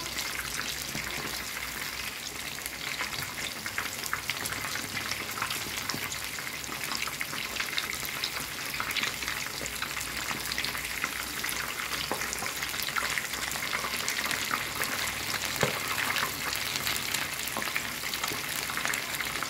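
Flour-coated chicken thighs deep-frying in hot oil, a steady sizzle with many small crackles and pops.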